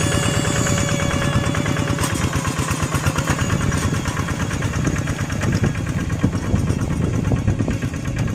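Small engine of a paddy-field hand tractor running steadily with a rapid, even pulsing beat.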